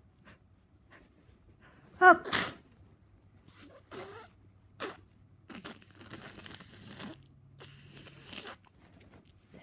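A person with a cold and a stuffy nose sneezes once, loudly, about two seconds in: a short voiced 'ah' rising straight into a sharp burst. Shorter sniffs and noisy breaths through the nose follow.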